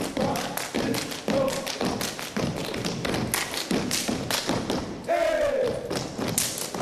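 Step team stepping on a stage: rapid, rhythmic foot stomps and hand claps, with shouts and one long falling call about five seconds in.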